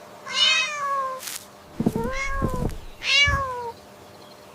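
Domestic cat meowing three times, each meow sliding down in pitch at the end.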